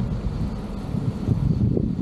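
Wind buffeting the microphone of a camera on a moving bicycle: a loud, uneven low rumble.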